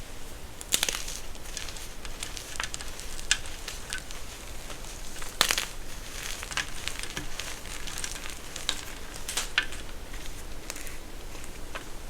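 Crunchy material being crushed, giving irregular crisp crackles and snaps, with the loudest sharp snaps about a second in and near the middle.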